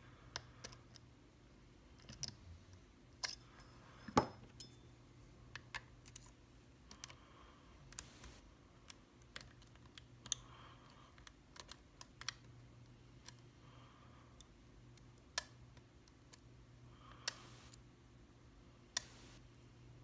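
Faint, irregular clicks and light scrapes of a lock pick and tension wrench working the pins of a Mul-T-Lock Garrison lock, the sharpest click about 4 s in, over a faint steady low hum.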